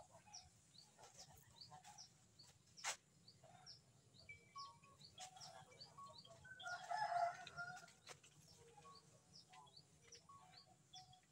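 Faint bird sounds: short high chirps repeating a few times a second, and a louder rooster call about seven seconds in. A single sharp click comes about three seconds in.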